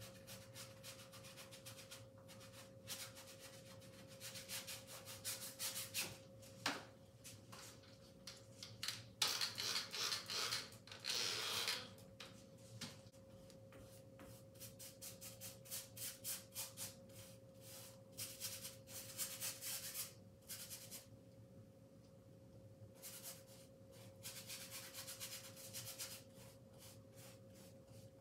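Paintbrush bristles scrubbing paint onto a large canvas in quick back-and-forth strokes. The strokes come in bunches with short pauses and are loudest about ten seconds in. A faint steady hum runs underneath.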